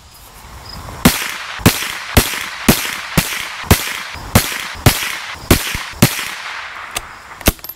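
A Tikka T1X .22LR rifle firing high-velocity CCI Mini Mag round-nose ammunition: a string of about ten sharp shots, roughly two a second, each with a short echo tail. Two fainter clicks or shots come near the end.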